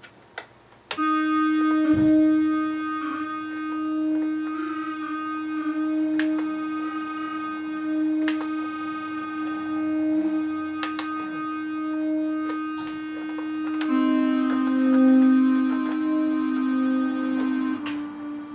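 Synthesizer sound played from a Korg MS2000R used as a MIDI controller. A held note rich in overtones sounds, with short higher notes repeating over it, and a second, lower held note joins about fourteen seconds in.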